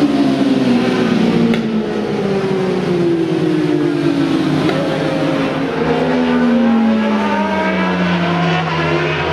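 Several racing motorcycles passing one after another, their engines running hard, each engine note falling in pitch as it goes by.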